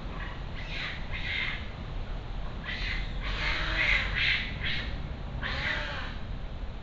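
A crow cawing: a series of harsh calls, some in quick runs, against a steady low background hiss.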